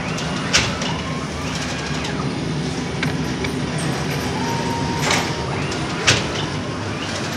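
Bakery dough-sheeting machine running with a steady mechanical din, cycling about every five and a half seconds: a short held tone, a hiss, then a sharp clack.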